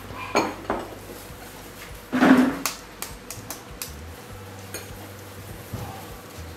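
A fork tapping an egg to crack its shell: a quick run of five sharp clicks about three seconds in, with a few clinks of metal on glass bowls around it. About two seconds in there is a louder short thud-like sound.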